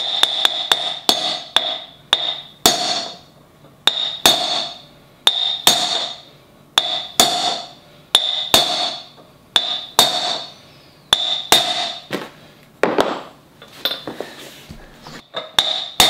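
Claw hammer striking a steel socket used as a driver to tap a wheel bearing into the hub of a Kawasaki ZX-10R rear wheel: sharp metallic taps, about two a second, each with a short ring.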